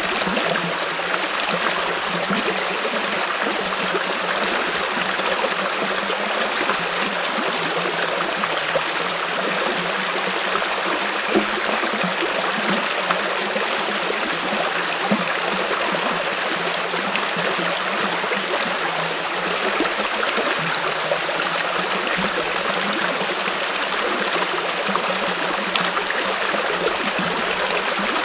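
Steady rush of a stream running over rocks.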